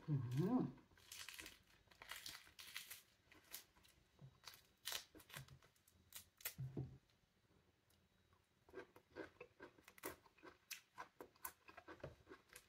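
Pomelo segment membrane being peeled apart by hand: faint, scattered tearing and crackling ticks, with a pause in the middle. A short hummed 'mm' comes right at the start.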